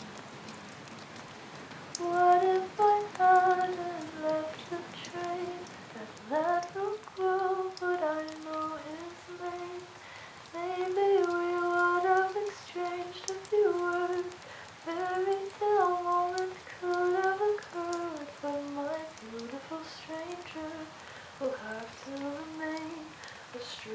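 A woman humming a slow, wordless melody, unaccompanied, made to sound like a record playing in the next room, with rain pattering faintly behind. The humming begins about two seconds in.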